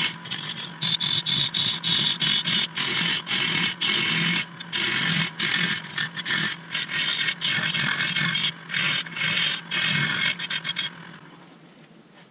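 Turning tool roughing out a spinning root-and-resin vase blank on a wood lathe: a harsh scraping cut, broken by many short gaps, that stops about a second before the end.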